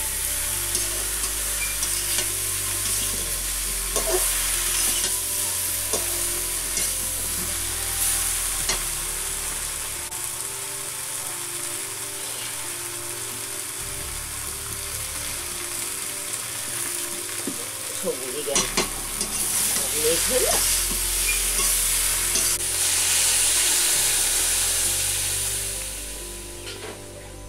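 Vegetables stir-frying in hot oil in a metal wok: a steady sizzle with the metal spatula scraping and clinking against the pan. The sizzle drops away near the end.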